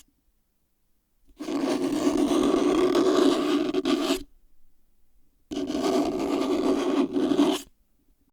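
Scraping and scratching on a plastic box, in two long passes of about three and two seconds with a short pause between them.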